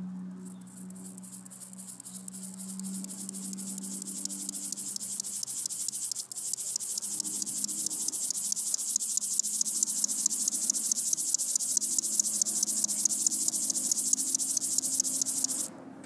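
Bow-winged grasshopper (Chorthippus biguttulus) stridulating, rubbing its hind legs against its wings in a fast, high, buzzy pulsing song. The song swells steadily in loudness, pauses briefly about six seconds in, and stops suddenly near the end.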